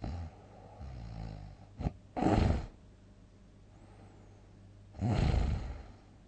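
A sleeping person snoring heavily: a low buzzing snore about a second in, then two loud, breathy snores about three seconds apart.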